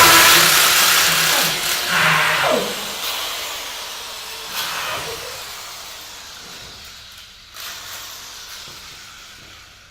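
A loud, steady hissing sound effect that fades away gradually over the several seconds, with a short falling sound about two seconds in.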